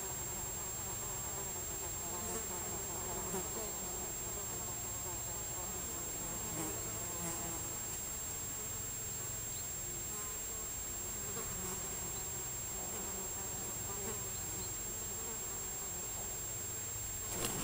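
Flies buzzing steadily around the rabbit carcass, their hum wavering in pitch, over a constant faint high whine. A short, louder rustling flurry comes near the end.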